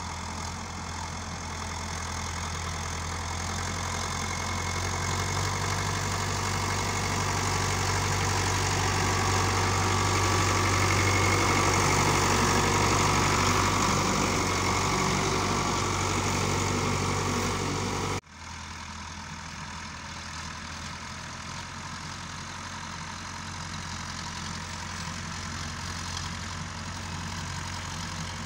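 Diesel engine of a YTO tractor running steadily while it pushes soil with a front blade. It grows louder as the tractor passes close by. About two-thirds of the way through, the sound cuts off abruptly to a fainter, more distant engine.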